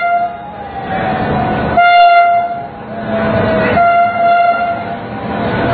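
Indian Railways locomotive horn sounding repeated short blasts, about two seconds apart, as the train runs through the station, over the rumble of the passing train.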